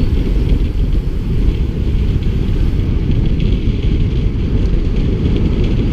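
Wind buffeting the microphone of a camera carried on a moving road bike, a loud, steady low rumble.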